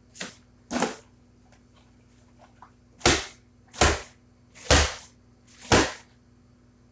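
Plastic milk jug being flipped and landing on a concrete floor: two lighter knocks, then four sharp smacks about a second apart.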